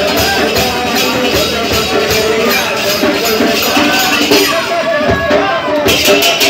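Kirtan music: a group of voices singing a devotional chant over a steady, fast beat of jingling hand cymbals. The cymbals drop out for a moment about five seconds in, then come back.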